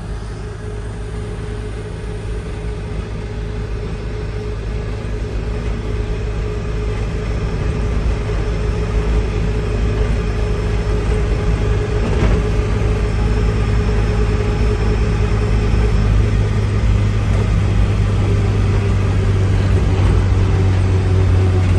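1952 Morris Minor's four-cylinder side-valve engine running under way, heard from inside the cabin with road noise, its sound building gradually louder through the stretch.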